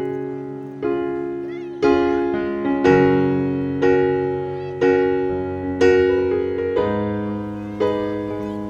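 Slow piano music: a chord struck about once a second, each ringing and fading before the next.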